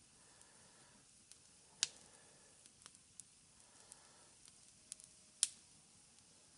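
Campfire of banked-up logs crackling quietly: scattered small ticks and two louder sharp pops.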